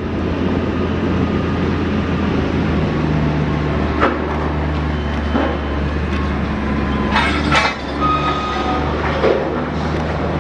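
Large diesel engines of a giant mining haul truck running steadily with a deep, even drone. Short squeaks and knocks from the machine sound over it a few times.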